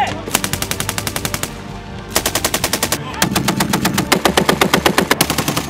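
An M2 .50-calibre heavy machine gun fires in bursts at about ten shots a second. There is a burst of about a second, then a short one, then a longer burst of about two and a half seconds that runs on to the end.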